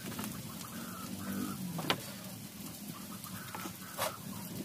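A hen clucking softly several times, over a faint steady sizzle of onions and green chillies frying in oil in a karahi. Two sharp clicks, about two seconds in and near the end.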